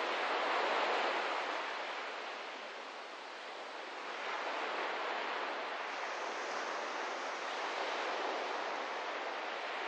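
Ocean surf washing onto a sandy shore: a steady rush of waves that swells about a second in, eases off around three seconds, and builds again.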